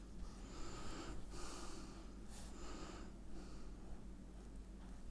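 Soft breathing puffs close to the microphone, about one a second, over a faint steady low hum.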